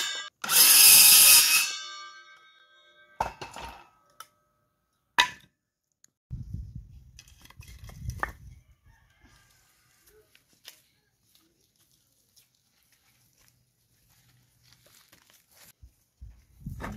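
Cordless circular saw finishing a cut through a wooden board. Its loud whine dies away over about two seconds. A few sharp knocks of cut wood blocks being handled and stacked follow.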